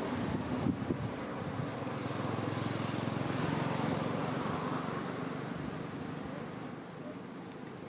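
A road vehicle driving past, its tyre and engine noise swelling to a peak near the middle and fading away towards the end.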